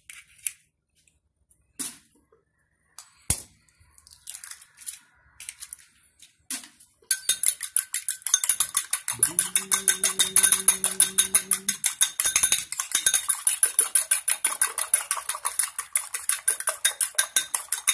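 Eggs cracked into a ceramic bowl with a few scattered taps and clicks, then, from about seven seconds in, beaten fast with a metal fork that clicks rapidly and evenly against the bowl.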